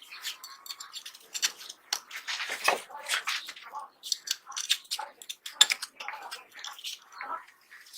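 Small metal pistol parts being worked by hand: an irregular run of sharp clicks, light taps and short scrapes.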